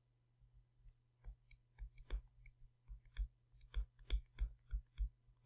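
Faint, sharp clicks, irregular at about three a second and starting about a second in, made while words are handwritten onto a computer screen, over a faint steady low hum.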